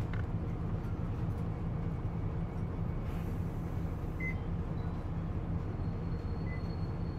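Isuzu Cubic city bus's diesel engine running steadily, heard from inside the passenger cabin. A short hiss of air comes about three seconds in, and a faint high whine begins near the end.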